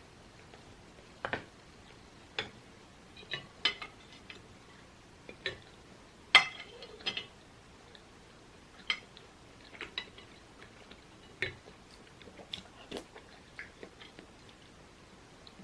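Eating sounds: irregular light clicks and clinks of utensils against a bowl, mixed with chewing, with the sharpest click about six seconds in.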